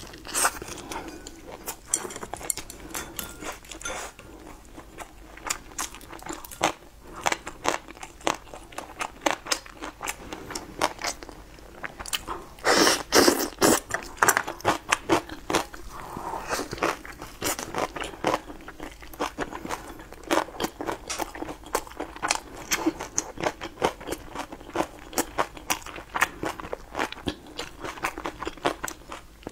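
Close-miked crunching and chewing of a crispy fried pastry: irregular crackling bites and chews all through, loudest in a burst of crunching about halfway through.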